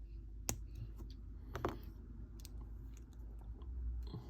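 Lego minifigure pieces and packaging being handled: a sharp plastic click about half a second in, a short crinkle soon after, and a few small clicks.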